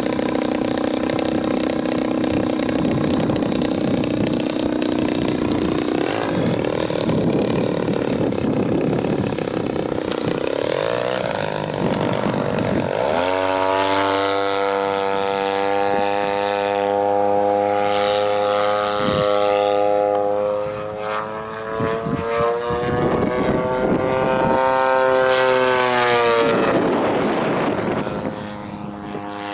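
Engine and propeller of a 1/3-scale Piper Super Cub RC airplane in flight, with wind noise underneath. The engine note holds steady for about ten seconds, climbs sharply around the middle as the throttle opens, then drops away near the end.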